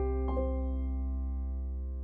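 Closing music: a couple of soft keyboard notes, then a held chord ringing on and slowly fading out.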